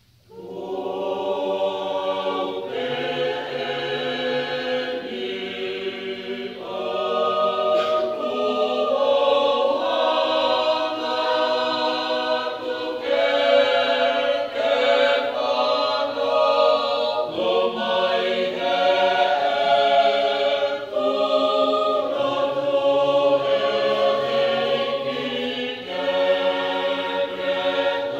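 Tongan church choir singing a gospel hymn in harmony, the mixed voices holding chords that change every second or two. The singing begins about half a second in.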